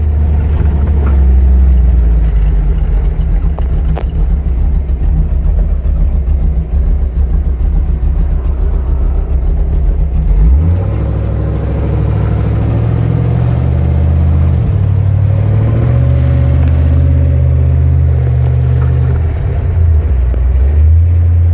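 Very loud, deep bass from a truck's car-audio subwoofers. Low notes are held steady, then step up in pitch about halfway through and change several more times.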